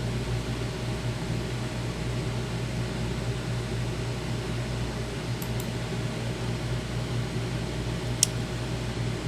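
Steady fan-like hum and hiss, with a low hum underneath, and one sharp click about eight seconds in.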